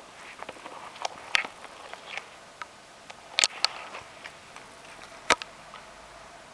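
Scattered light clicks and taps of handling noise over faint room hiss, with sharper clicks about a second and a half in, a close pair around three and a half seconds, and one more past five seconds.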